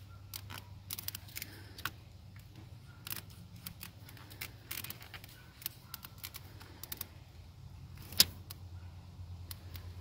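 Scattered small clicks and rattles of a plastic multi-pin wiring-harness connector and its wires being handled, with one sharper click a little past eight seconds in.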